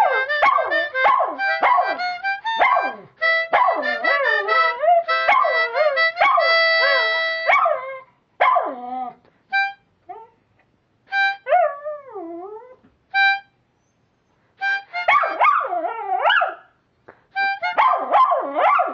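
A dog howling along to a harmonica: wavering, bending howls over the harmonica's held notes and chords. Midway the playing thins to short separate notes with one long falling howl, then both pick up together again.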